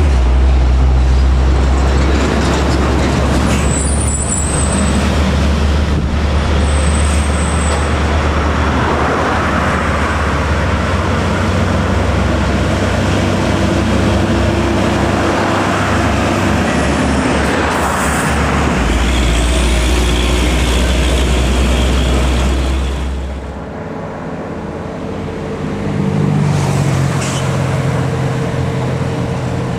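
Heavy trucks' diesel engines labouring up a steep incline under load, a deep, loud rumble as they pass, with a few brief high squeals a few seconds in. The sound eases off a little past two-thirds of the way through, then another truck's engine comes up.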